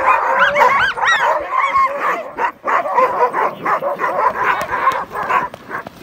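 Many sled dogs in harness yipping and barking at once, a dense chorus of short, overlapping, arching calls that thins out near the end: the excited clamour of dog teams at a race start.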